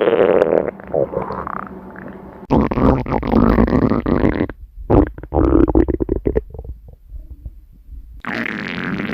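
Human stomach growling: several loud bursts of gurgling, separated by quieter stretches.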